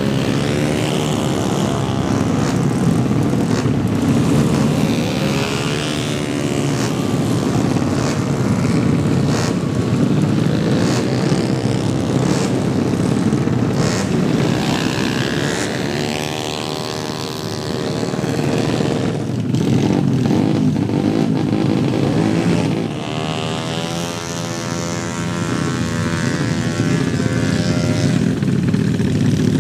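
Several tuned drag-racing motorcycle engines running loudly, their revs rising and falling repeatedly, with the pitch climbing about halfway through and again near the end.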